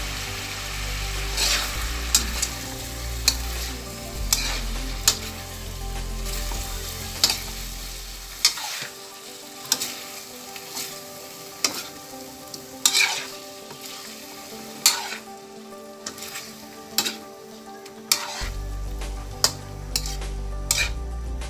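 Chicken pieces in tomato sauce sizzling in a wide metal wok as they are stirred with a metal spatula, the spatula scraping and clinking against the pan many times.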